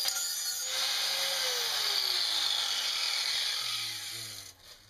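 Handheld power grinder grinding the bottom edge of a steel lawn mower blade, giving a loud high hiss over the motor's hum. The motor's pitch sags as it bears on the steel, and the grinding stops about four and a half seconds in.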